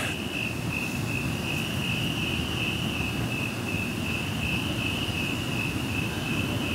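Crickets trilling steadily at one high pitch, with a low rumbling noise underneath.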